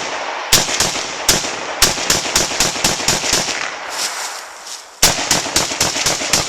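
Rapid semi-automatic gunfire, about three or four shots a second, each with a short echo. There is a brief pause about four seconds in, then another fast string of shots.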